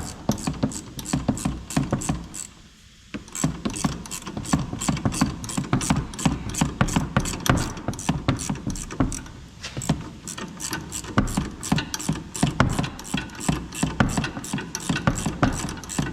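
Hand ratchet wrench clicking rapidly as it turns the upper shock-mount nut, with a short pause about three seconds in.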